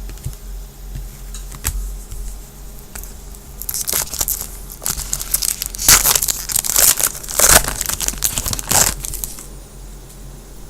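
Foil trading-card pack wrapper crinkling and being torn open, a few light handling clicks first, then a dense stretch of crackling from about four to nine seconds in.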